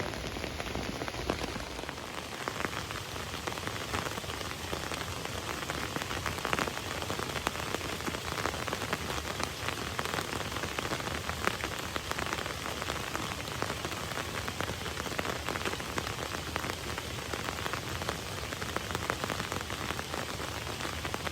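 Steady rain, with many small drop hits.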